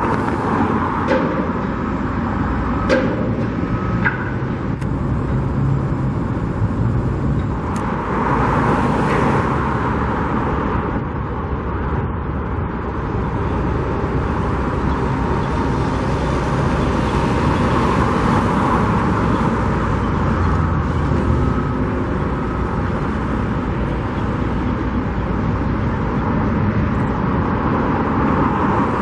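Road traffic: a steady rush of vehicles, swelling and fading as cars pass, with a few clicks in the first few seconds.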